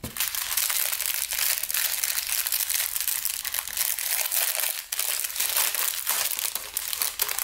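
Thin plastic packets of diamond-painting drills being handled, crinkling continuously in a dense run of small crackles, with a brief lull nearly five seconds in.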